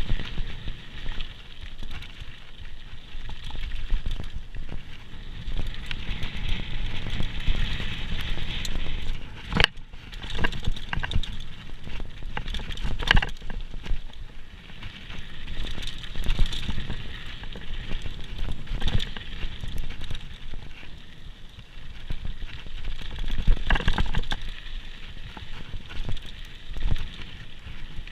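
Downhill mountain bike descending a rough trail, recorded on a GoPro: continuous crackling rattle and tyre noise over rough ground, with a few sharp knocks from bumps.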